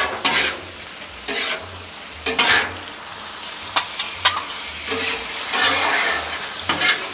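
Beef and broccoli sizzling in sauce on a Blackstone flat-top griddle, with repeated short scrapes of a spatula across the steel as the food is stirred and turned, about one stroke a second.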